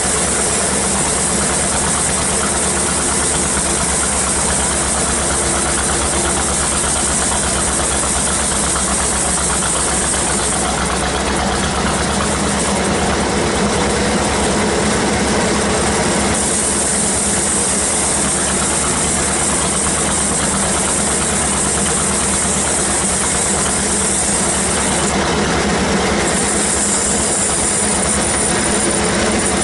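Band sawmill running steadily: a continuous mechanical drone with a strong high hiss from the saw working through a teak log.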